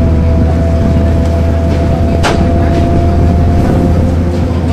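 1999 Nova Bus RTS's Cummins ISC diesel engine idling steadily: a deep hum with a steady whine over it, and one sharp click about two seconds in.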